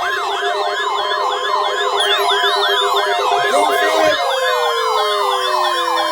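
Several electronic alarm tones layered together: a siren yelping up and down about three times a second over a steady alert tone and a pulsing lower tone. From about four seconds in, one tone slides steadily down in pitch.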